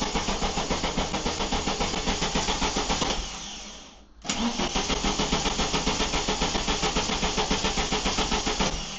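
Volkswagen engine cranking on its starter motor with an even, rapid chug but not catching, because the coil HT lead is not connected. The cranking fades out about three seconds in, and after a sharp click it cranks again for several more seconds.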